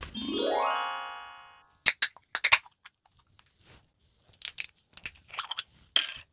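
Metal screw cap of a green glass soju bottle being twisted open, its seal breaking with a series of sharp clicks and crackles. Near the start there is a rising pitched tone that lasts about a second and a half and fades out.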